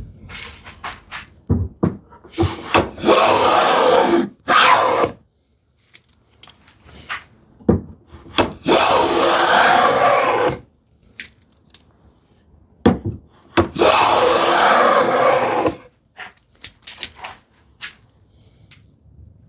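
Hand plane cutting along the edge of a wooden drawer back: three long strokes of about two seconds each, with short knocks and clicks between them.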